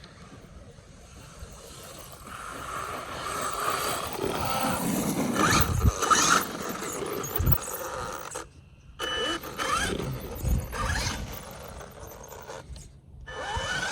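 Traxxas Maxx RC monster truck's brushless motor whining as the truck drives and accelerates, with tyre and drivetrain noise. It pulls away smoothly without cogging on its stock 24/50 gearing. The sound builds over the first few seconds, cuts out briefly past the middle, then resumes.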